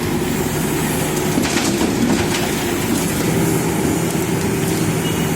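Heavy diesel engine of a JCB backhoe loader running steadily, with a few faint knocks.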